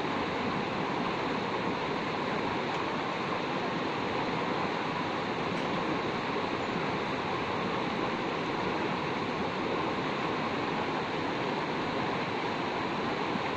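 Shallow rocky river rushing steadily over stones.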